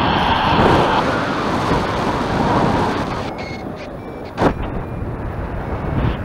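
Wind rushing and buffeting over the microphone of a paraglider in flight, with a brief thump about four and a half seconds in. From about halfway through, faint short beeps of a variometer sound, signalling lift.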